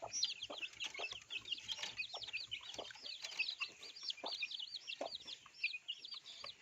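A crowd of baby chicks peeping without a break, many short high chirps overlapping, with a few lower short calls among them.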